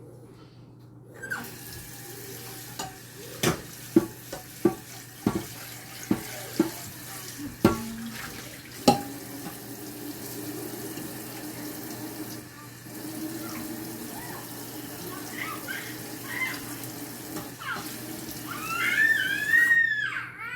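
Kitchen sink tap running, with a string of sharp clinks and knocks from dishes being handled under the water. The water stops near the end, as a short high-pitched squeal rises and falls.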